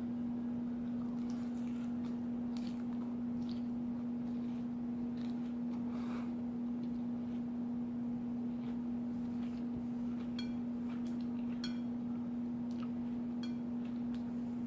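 Scattered faint crunches and clicks of salad being chewed and forked off a plate, over a steady low hum.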